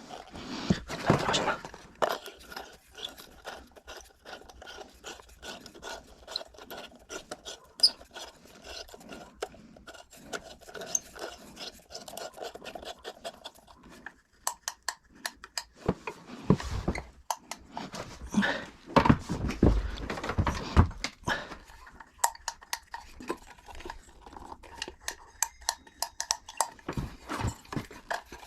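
Hand work on panels: irregular light clicks and knocks, with louder stretches of rubbing and scraping about a second in and again twice in the second half.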